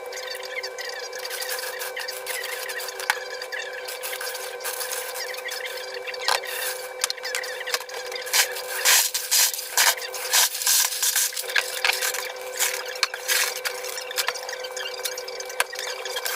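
Lego bricks being handled and pressed together in a time-lapse build: quick clicks, rubbing and squeaky chirps over a steady hum, busiest from about eight to twelve seconds in.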